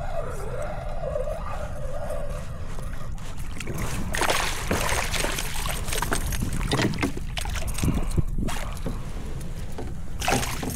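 Knocks, clatter and rustling of a freshly caught fish being handled in a kayak. They start about four seconds in and come in irregular clusters, over a steady low wind rumble on the microphone.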